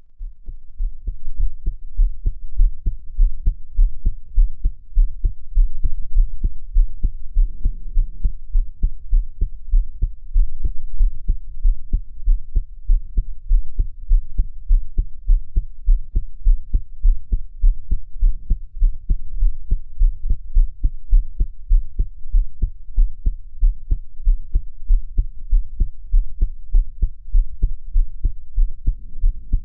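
A woman's heartbeat, beating in a steady, regular rhythm of low thuds, recorded while she is crying.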